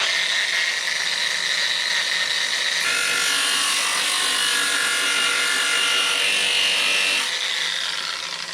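Handheld electric grinder running on a small steel patch piece, shaping it to fit the cross member. A higher whine comes in about three seconds in, and the tool spins down near the end.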